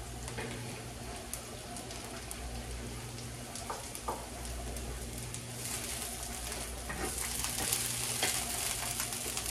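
Chopped onions and vegetables sizzling in a hot skillet, the sizzle growing louder in the second half as they are stirred with a wooden spatula, with a few light taps.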